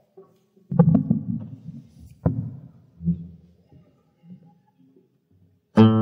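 Microphone stand being moved and adjusted close to the microphone: low rumbling handling noise with a few sharp knocks. Near the end a fretless classical guitar starts playing, one plucked chord ringing on.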